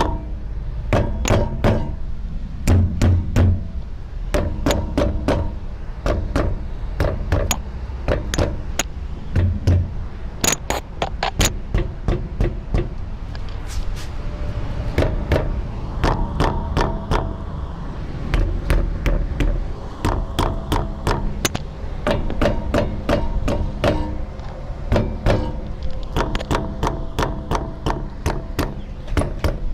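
Mallet tapping on a Honda Crossroad around a wheel, to find where a rattle comes from. Quick strikes come in runs of several a second, many ringing briefly with a metallic tone, over a steady low hum.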